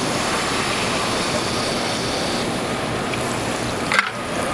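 Royal Master TG-12x4 centerless grinder running, with a steady water-like rush of coolant flooding over the grinding wheel and part and a higher hiss that fades about two and a half seconds in. A single sharp click comes about four seconds in.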